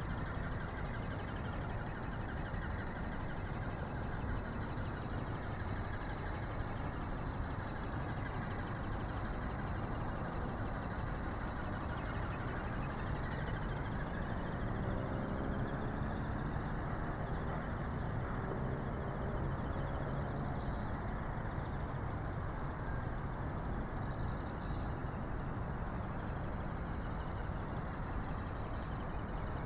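Small electric ornithopter in flight: its brushless motor and reduction gears drive the flapping wings, making a steady mechanical whir with a strong high hiss.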